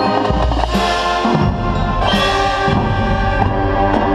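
Marching band brass and percussion playing sustained chords, with a deep low hit just after the start and two bright crashes about one and two seconds in.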